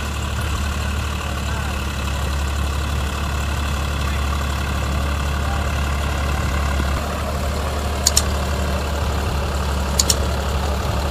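Deutz-Fahr tractor's diesel engine running steadily while pulling a plough through dry soil, a low, even drone. Two sharp double clicks come near the end.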